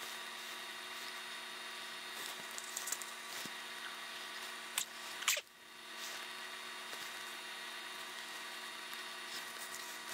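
Faint taps and scrapes of small pen-blank pieces and an epoxy mixing stick handled on a tabletop, with two sharp clicks a little past the middle, over a steady background hum.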